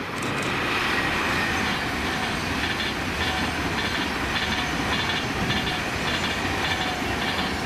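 Class 390 Pendolino electric train passing at speed: a loud, steady rush of wheel and air noise with a regular clatter of wheels about twice a second.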